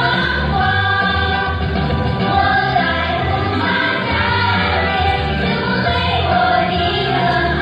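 Music: a song with a group of voices singing over a steady bass beat.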